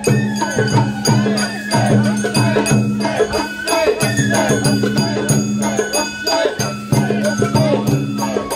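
Sawara bayashi festival music played live on a float: a shinobue bamboo flute playing over shime-daiko drums and a clanging hand gong.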